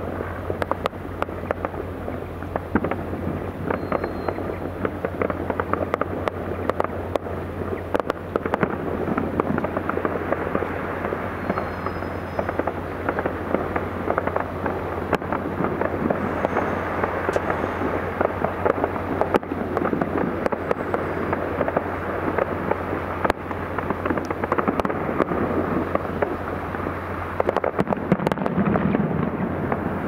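Fireworks display: a dense, continuous crackle and popping of many shells bursting, with sharper cracks scattered throughout. A steady low hum runs underneath.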